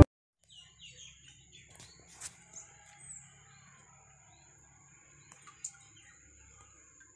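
Faint ambience: small birds chirping now and then over a low hum and a thin, steady high tone, with a few soft clicks.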